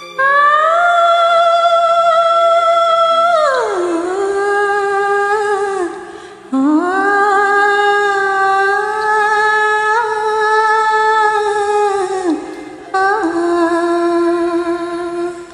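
A high voice humming or singing a wordless vocalise of long held notes. Each note slides up into pitch and glides down at its end, with brief breaks about six seconds in and again near the end.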